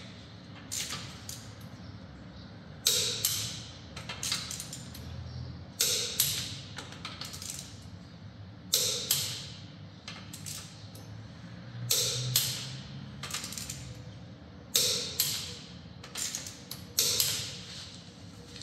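Click-type torque wrench tightening wheel bolts, giving a sharp metallic click or two about every three seconds as each bolt reaches its set torque, seven times in all.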